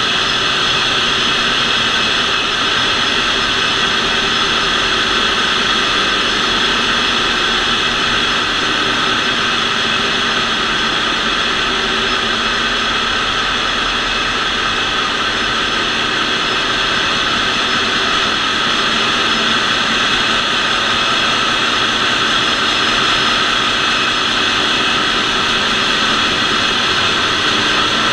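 Ship's engine-room machinery running: a loud, steady din with a few steady whining tones above it.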